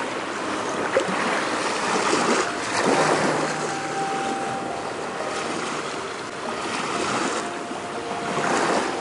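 Sea waves washing against a seawall, with wind on the microphone, swelling about two to three seconds in and again near the end. A single sharp click about a second in.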